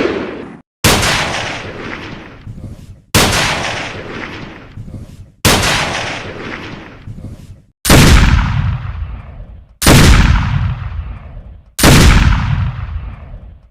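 Gunshot sound effects: six single shots, one about every two seconds, each a sharp crack followed by a long echoing tail that dies away before the next. The last three are heavier and deeper than the first three.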